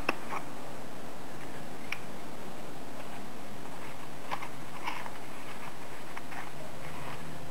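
Folded paper petals handled at a stapler: a sharp click at the start, then scattered light clicks and paper rustles, over a steady hiss.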